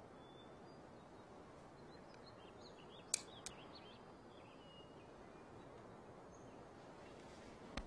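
Faint outdoor garden ambience with scattered small bird chirps. A single sharp click about three seconds in is the loudest sound, followed by a softer one just after, and another click comes near the end.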